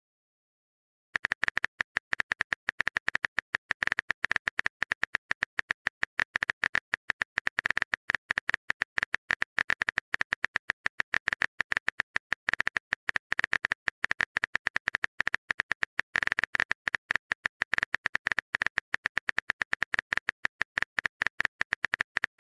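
Rapid, uneven phone-keyboard typing clicks, the sound effect of a message being typed in a texting-story chat; they start about a second in.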